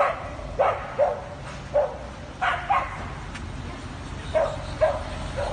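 A husky yelping: about nine short, sharp cries, mostly in quick pairs, each falling in pitch.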